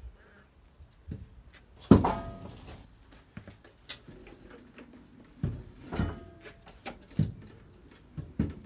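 Irregular metal clanks and knocks from tools and parts as a classic Mini's rear subframe is worked loose. The loudest comes about two seconds in and rings briefly, and several smaller knocks follow.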